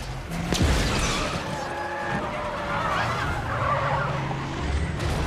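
Film sound effects of a vehicle skidding, with tyres squealing over a low rumble of traffic. A sharp crack comes about half a second in.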